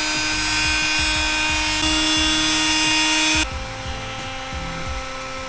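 Mastercraft electric heat gun running: its fan motor gives a steady high whine over a rush of air. About three and a half seconds in it steps down to a lower, quieter pitch, and it shuts off at the end.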